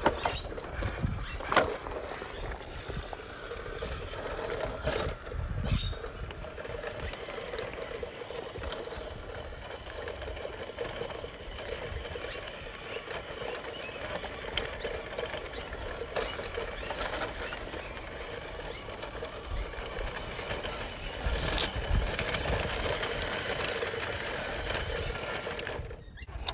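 A 1:16 scale RC truck's small electric motor and gearbox whir steadily as it drives over dirt and rocks. Scattered knocks and scrapes come from the truck on the ground, and it runs louder for the last few seconds.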